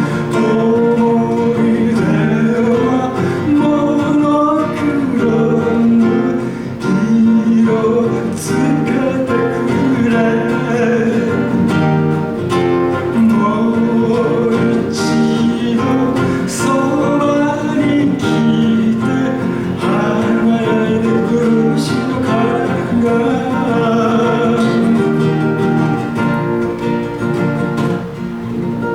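Acoustic guitar strummed with a voice singing along, the loudness dropping near the end as the song winds down.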